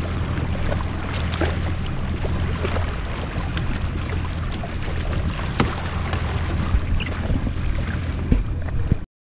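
Jet ski engine running steadily at slow trolling speed, a low even hum with wind and water noise over it and a few sharp knocks. The sound cuts off abruptly near the end.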